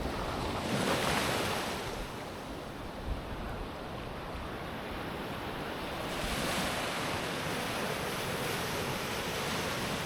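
Ocean surf: waves breaking and washing up the beach at high tide, in two louder surges about five seconds apart over a steady wash.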